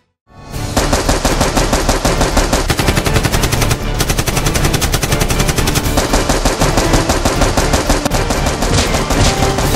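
Rapid automatic gunfire sound effect, many shots in quick succession, starting about a second in and going on without a break.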